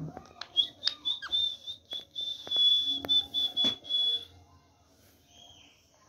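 Indian ringneck parakeet whistling: one long high steady whistle lasting about three and a half seconds, mixed with quick sharp chirps and clicks, then a faint short call near the end.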